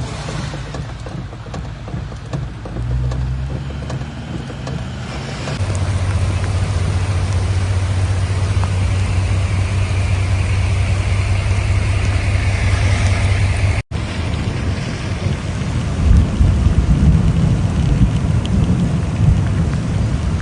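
Heavy rain pouring, with a steady low rumble underneath that grows louder in the last few seconds; the sound breaks off for an instant about two-thirds of the way through.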